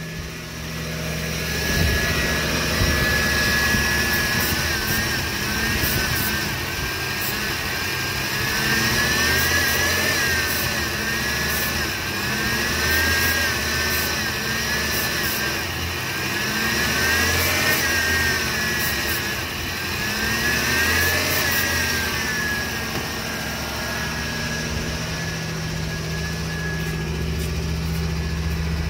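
Pickup truck engine running with the accelerator held down while aerosol cleaner is sprayed into the throttle body. Its speed wavers up and down again and again through the middle stretch, mixed with short hisses from the spray can, then settles to a steady run near the end.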